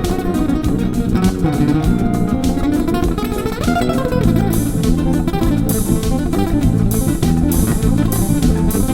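Guitar and bass guitar playing an improvised instrumental passage: a fast run of plucked guitar notes over a bass line, with sharp accented strikes about twice a second from about halfway through.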